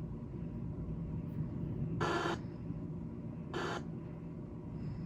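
Dead air on a radio broadcast: a steady low hum and hiss, broken twice by a short burst of hiss, about two seconds in and again a moment later.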